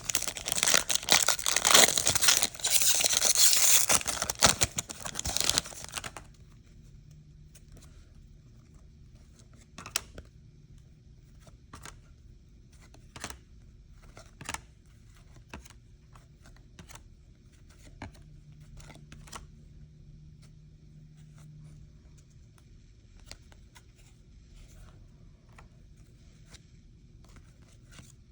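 A foil trading card pack wrapper torn open, loud crinkly tearing for about six seconds. After that, soft scattered clicks and flicks as the cards are handled.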